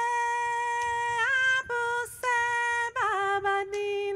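A woman singing a song from African dance class a cappella, holding long notes in short phrases. About three seconds in, the melody drops lower and the last note is held.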